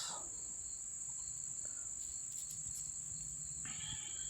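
Crickets trilling steadily in the background, a continuous high-pitched chirring, over a faint low hum.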